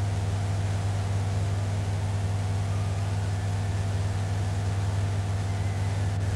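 Steady electrical hum with hiss and no other sound: a gap in the recorded soundtrack where only the recording chain's mains hum is heard.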